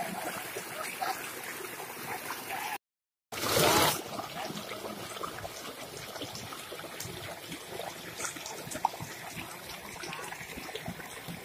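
Shallow stream water running and splashing as it pours over stones and a woven reed fish-trap mat. The sound cuts out completely for a moment about three seconds in, then comes back with a brief louder burst before settling to the steady flow again.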